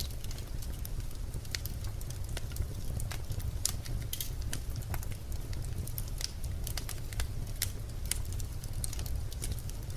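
Birch logs burning in a fireplace, with a steady low rumble of flame and frequent irregular sharp crackles and pops.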